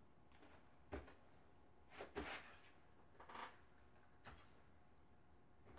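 A few faint, short snips and rustles in a quiet room: scissors trimming loose sewing threads and the fabric being handled.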